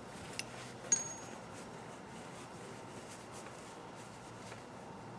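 Two light metal clicks from small chrome hand tools being handled, the second a brief ringing clink, over faint steady background hiss.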